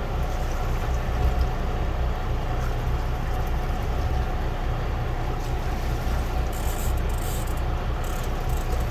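Boat engine idling, a steady low rumble with a faint steady hum, and a few light crackles a little past the middle.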